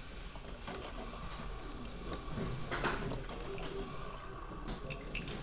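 Coffee maker running: a steady hiss and low hum with irregular crackling, bubbling sounds, and one louder burst about three seconds in.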